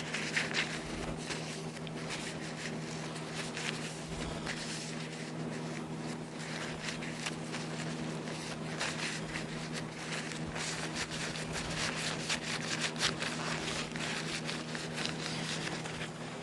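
A rag wiping the light tool oil off a new hand plane: a run of irregular rubbing and scuffing strokes with small clicks of handling, over a steady low hum.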